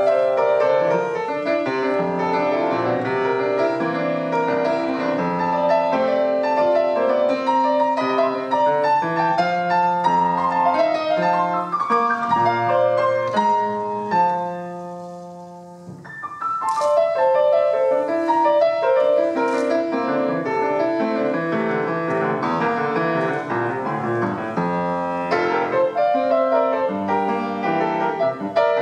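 Solo grand piano playing an Argentine gato, the folk dance named in the piece's title, with full chords and running melody. About halfway through, a chord is left ringing and dies away for a couple of seconds before the playing starts again with bright high notes.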